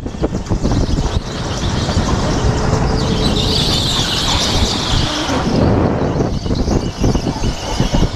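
Racing go-kart running at speed, heard from a helmet-mounted camera: a steady rush of kart noise and wind. A higher hiss rises about three seconds in and fades some two seconds later as the kart goes through a corner.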